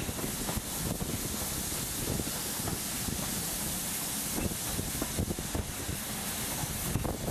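Wind buffeting a microphone held out of a carriage window, over the steady running noise of a train hauled by an LMS Black Five 4-6-0 steam locomotive.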